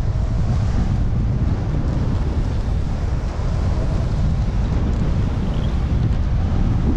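Wind buffeting a GoPro Hero 8 Black's microphone while skiing downhill, a loud steady low rumble, with skis sliding over packed snow beneath it.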